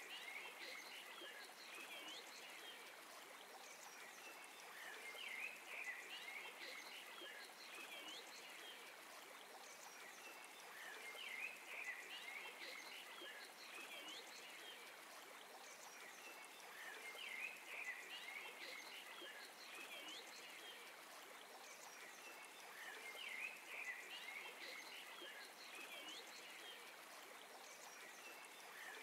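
Faint birds chirping in spells that come back about every six seconds, over a steady background hiss.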